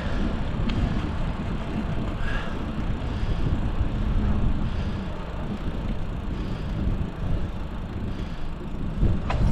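Riding noise from a moving bicycle: steady wind rush on the microphone with tyres on pavement, and a brief click near the end.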